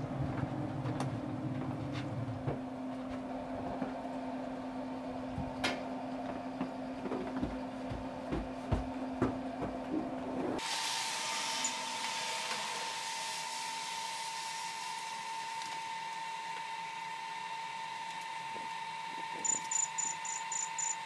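Traeger pellet smoker running with a steady fan hum, with scattered clicks and knocks as the grill is handled. Near the end, a quick run of short high electronic beeps as the buttons of a ThermoWorks Signals thermometer are pressed.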